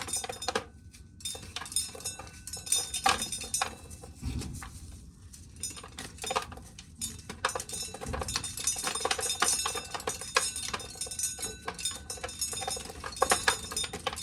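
Dried corn kernels being shelled off the cob, a dense, irregular run of sharp clicks and rattles as they drop into a bucket.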